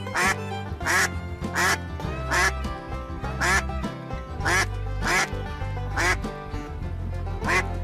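Duck quacking over and over, about a quack a second, over steady background music.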